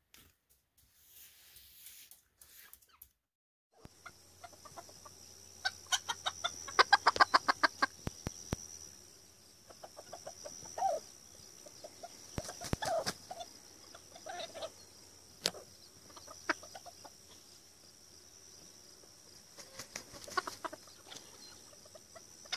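Serama bantam chicken clucking, starting about four seconds in: several fast runs of short clucks and a few short calls that bend in pitch, over a steady high-pitched background tone.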